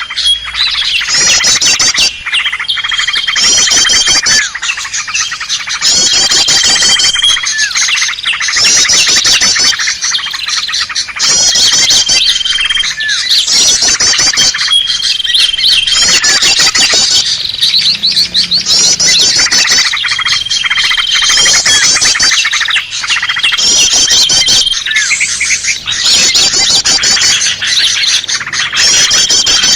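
Recorded calls of small songbirds layered into a dense, loud bird-lure mix. A cycle of rapid high trills and a short steady whistle repeats about every two seconds.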